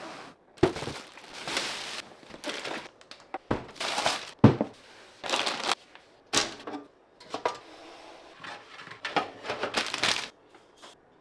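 Hands handling computer parts and their packaging: a string of sharp clacks and knocks, with crinkling rustles between them.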